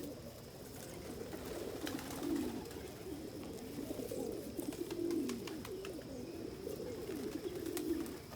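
Domestic pigeons cooing in a loft: several birds' low, wavering coos overlapping throughout, with a few faint clicks among them.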